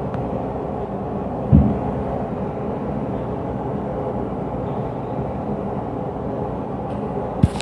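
Stomping from the apartment upstairs heard through the ceiling: one heavy thud about a second and a half in and a sharp knock near the end, over a steady low rumble.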